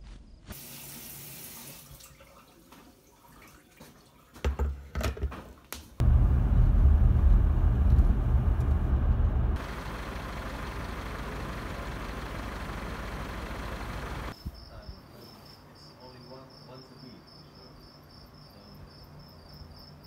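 A loud low rumble for a few seconds, then a steady hiss that cuts off suddenly. After it, crickets chirping in an evenly pulsing, high-pitched trill.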